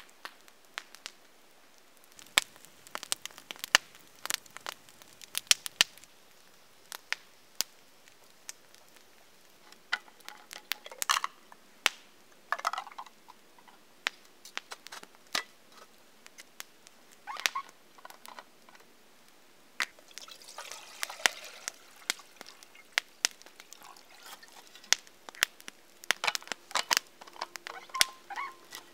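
Wood campfire crackling, with irregular sharp pops all through, and a few short stretches of rustling and handling of a thermos and a small metal kettle.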